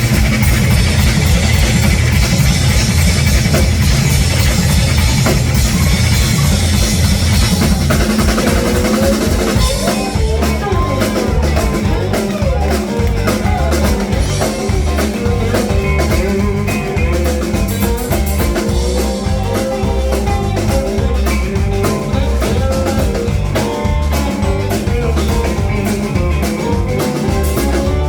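A live blues band plays an instrumental passage with drums, bass and guitar. About ten seconds in, the cymbal-heavy full band thins out to a lead line of bending notes over a steady bass and drum pulse.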